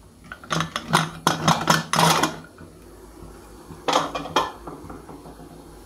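Lid of a Prestige pressure cooker being opened and lifted off: a quick run of metal clanks and scrapes over about a second and a half, then a couple more knocks about four seconds in.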